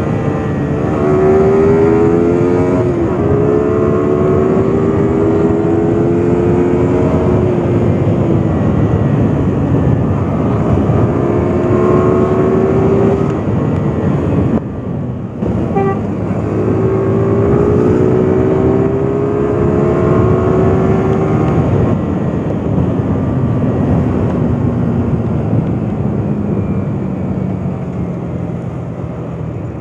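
Yamaha R15 motorcycle's single-cylinder engine under way. Its pitch climbs and drops back at each gear change, dips briefly about halfway, and falls away over the last several seconds as the bike slows.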